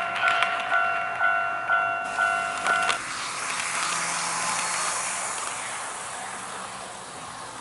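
Model railway level-crossing warning device sounding its electronic crossing alarm, a ringing tone struck about twice a second, which cuts off abruptly about three seconds in. A hissing rush of a passing train follows and slowly fades away.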